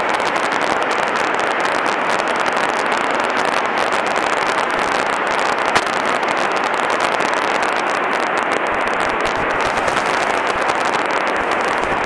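Steady drone of a Grumman light airplane's engine and propeller in flight, heard through the headset intercom as a hissy, crackly noise without low rumble.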